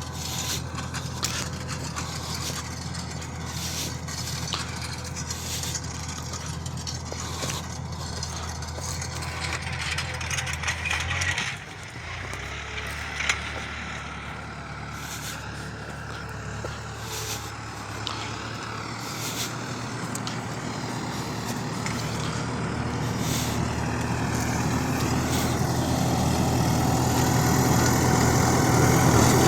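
New Holland TD4.100F tractor's diesel engine running steadily while pulling a tine cultivator, with scattered sharp clicks over it. About eleven seconds in the engine note drops, then the engine grows steadily louder toward the end.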